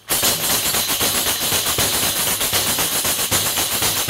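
Traditional Spanish pandereta (skin-headed tambourine with metal jingles) played in a simple jota rhythm. Steady, even hand strikes on the head sound over continuous jingling as the tambourine is moved and shaken.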